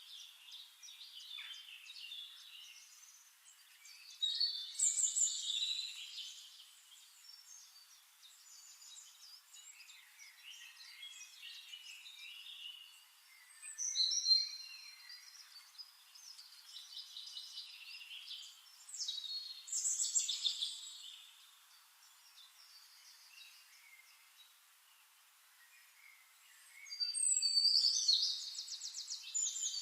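Birds chirping and singing in several bursts of high, quick trills and chirps, with quieter stretches between.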